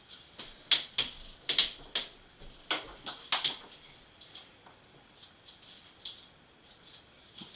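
Toy air blaster darts being pulled off a window pane and gathered by hand: about eight sharp clicks and pops within three seconds, then a few faint ticks.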